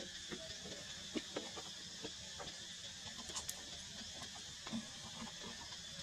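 Faint, irregular small clicks and smacks of a baby monkey's mouth as it licks and eats from a person's palm, over a steady high hiss.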